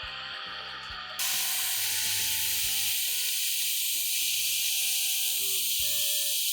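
Hot air gun blowing a steady hiss as it reflows the solder under a replacement MOSFET on a graphics card; the hiss jumps louder about a second in. Soft background music plays underneath.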